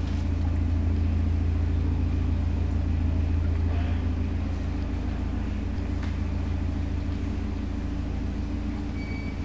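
A narrowboat's inboard diesel engine running steadily at low cruising revs, a constant low hum.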